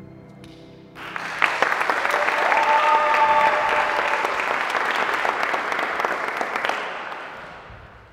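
The last held note of the music dies away, then an audience breaks into applause about a second in, with a cheer rising above it, and the clapping fades out near the end.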